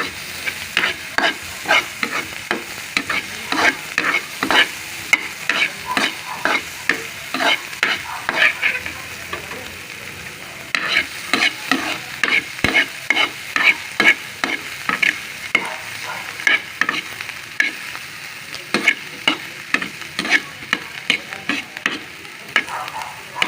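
Chopped garlic and onion sizzling in butter in a frying pan while a utensil stirs and scrapes the pan in quick strokes, about two or three a second, pausing briefly twice.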